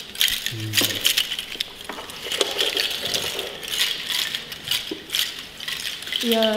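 A hand-held shaker rattle shaken irregularly, giving a dry clattering. Near the end a voice sings a short note that rises in pitch.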